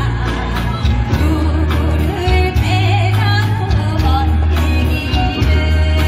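A woman singing a Korean traditional folk song through a PA, her melody wavering with vibrato, over amplified accompaniment with a steady deep bass.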